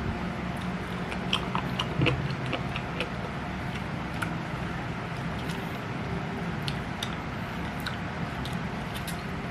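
Close-miked eating sounds of chewing nasi padang: irregular small wet clicks and smacks of the mouth, clustered about a second in and scattered later, over a steady low background hum.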